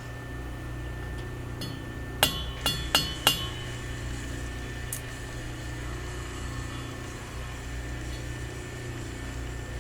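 Four quick hammer taps on a steel driveshaft tube, each with a short metallic ring, knocking it over to true it against a dial indicator. A steady low hum runs underneath.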